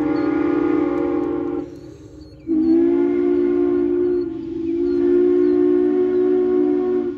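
Locomotive whistle blowing two long blasts, a chord of several steady notes. The first blast cuts off about a second and a half in, and the second starts about a second later and holds for nearly five seconds.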